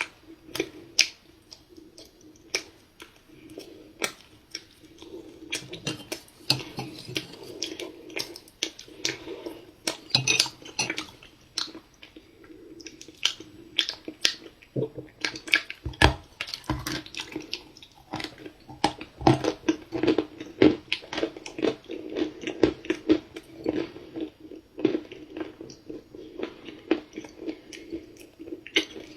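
Close-miked chewing of dry, crumbly cookie chunks: a steady run of crunchy, crackly chews with a few louder bites, one about sixteen seconds in.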